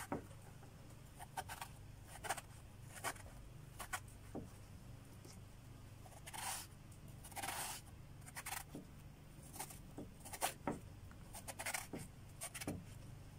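Chef's knife scoring halved eggplant on a wooden cutting board: a series of short cutting strokes at irregular intervals, with two longer strokes a little past the middle.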